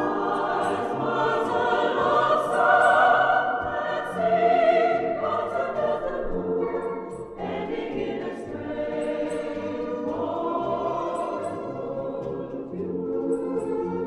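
Choir singing a slow, sustained melody with orchestral accompaniment.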